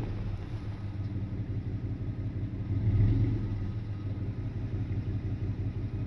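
A vehicle engine running steadily with a low hum, swelling briefly about three seconds in.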